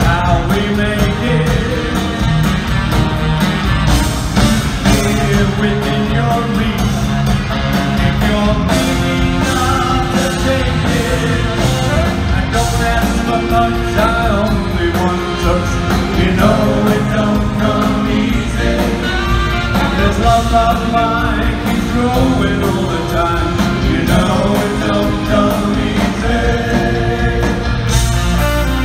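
Rock band playing live, with electric guitars, bass, drums and saxophone under a sung lead vocal, heard in a large arena.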